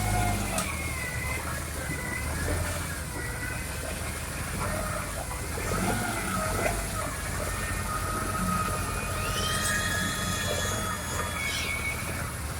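Concrete batching machinery and mixer truck running: a steady low engine hum with high, wavering metallic squeals over it, and a brief cluster of higher squeals near the end.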